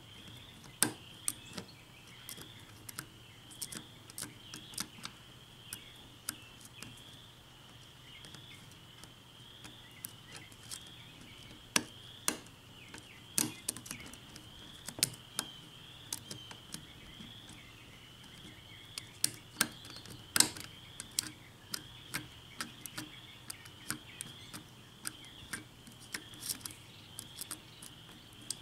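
Hook pick and tension wrench working the pin tumblers of an Asec six-pin lock cylinder: faint, irregular metallic clicks and ticks as the pins are lifted and set, a few sharper clicks among them, the sharpest about twenty seconds in. A faint, steady high-pitched pulsing whine runs underneath.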